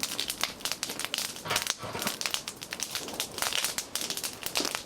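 Bonfire crackling, with dense, irregular pops and snaps.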